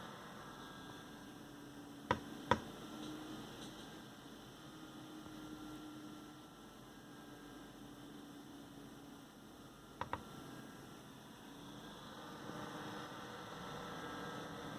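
AMD Wraith Spire stock CPU cooler fan running with a steady hum whose pitch drifts slightly, the noise the owner calls loud. Two sharp clicks come about two seconds in, and a quick double click near ten seconds.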